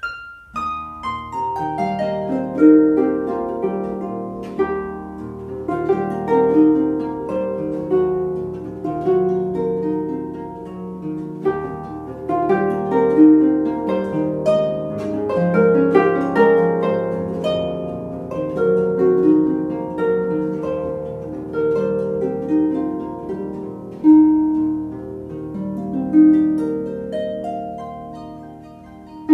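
Solo concert pedal harp playing: plucked notes and chords start right at the beginning and run on in a continuous flow of ringing, overlapping notes, with a brief dip in loudness near the end.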